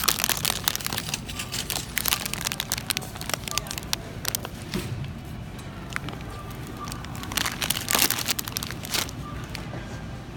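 Cellophane bags of candy conversation hearts crinkling as they are handled. There is a dense run of crackles for the first few seconds, then another about seven to nine seconds in.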